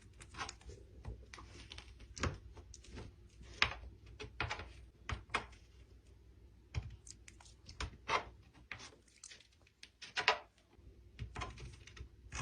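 Slime being handled and squeezed, making irregular small clicks and pops with short pauses between them.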